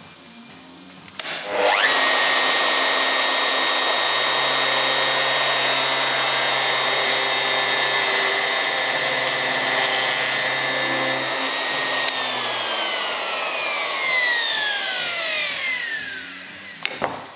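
A high-speed electric power tool's motor spins up about a second in, runs at a steady high whine for about ten seconds, then is switched off and winds down, its pitch falling over several seconds, with a click near the end.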